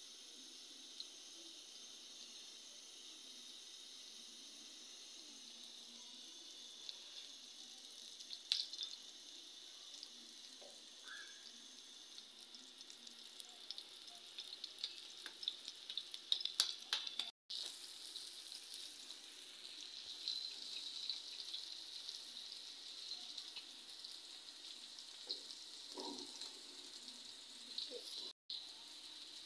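Patties shallow-frying in oil in a pan: a steady sizzle with scattered crackles and pops, louder and busier from about halfway through, with two brief cut-outs.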